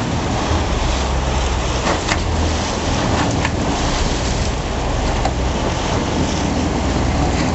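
Fishing boat under way: a steady low engine drone with water rushing along the hull and wind on the microphone.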